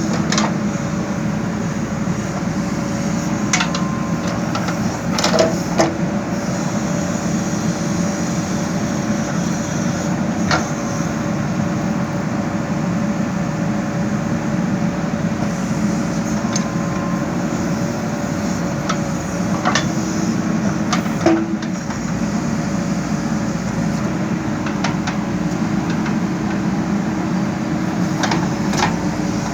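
JCB backhoe loader's diesel engine running steadily while it digs, with a scattering of short sharp knocks over the engine.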